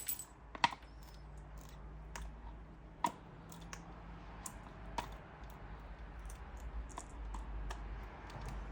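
Scattered small clicks and taps of plastic fan parts and a screwdriver being handled while a stand fan's oscillation knob and back screw are taken off, over a faint steady hum.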